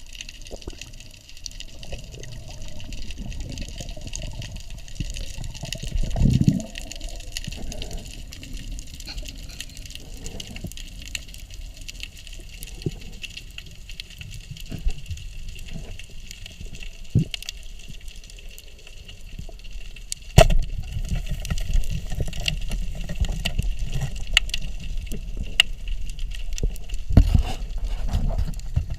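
Underwater sound through a camera housing: steady water rumble and hiss, with many scattered small clicks and a few sharp thumps, the loudest about two-thirds of the way in.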